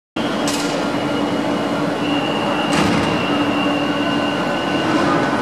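Madrid Metro line 8 train moving along an underground platform: a steady rumble with a steady electric whine, and two sharp clicks, about half a second and about three seconds in.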